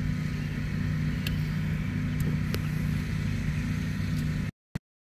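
A vehicle's engine idling steadily, heard from inside the cab as a low, even hum with a few faint ticks. About four and a half seconds in the audio cuts out abruptly to dead silence, a dropout in the recording.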